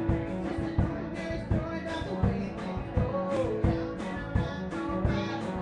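Live band playing a rock song, with acoustic guitar strumming over a steady drum beat that hits about every 0.7 seconds.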